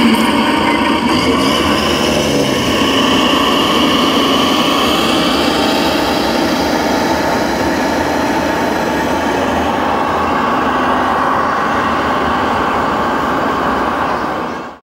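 Steady engine-like running of a 1:8 scale radio-controlled Unimog truck as it drives, mixed with the steady hum of a busy exhibition hall; the sound fades out sharply near the end.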